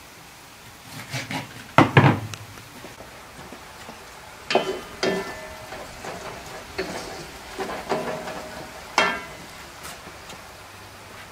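A knife chopping through raw chicken on a wooden table, a few heavy chops about two seconds in. Then a wooden spoon stirring and knocking in an aluminium pan, with the metal ringing briefly at several of the knocks.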